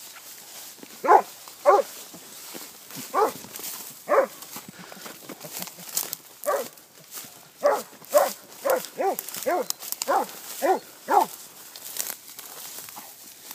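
Tracking dog barking in short, sharp yelps on a scent trail, about a dozen in all: a few at first, a pause around the middle, then a quicker run near the end. Light crackling and swishing of grass between the barks.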